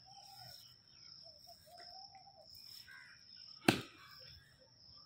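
Outdoor garden ambience: a steady high-pitched insect drone with short bird calls, broken by a single sharp thump about three and a half seconds in.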